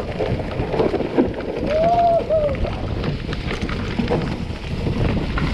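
Mountain bike rattling and knocking over rough trail, with wind buffeting the microphone. There is a brief squeal that rises and falls about two seconds in.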